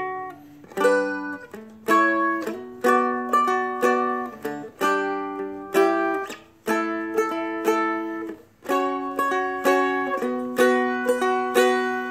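Seagull Merlin M4, a four-string fretted dulcimer-style instrument, strummed in slow chords high up the neck. Each strum rings on and fades before the next.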